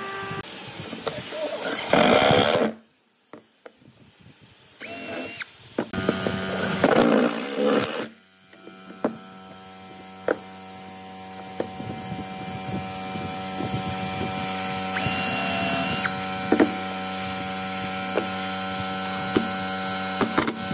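Cordless drill working pine wood: a few short loud runs, then a long steady whir with scattered clicks as it drives a screw into the wood.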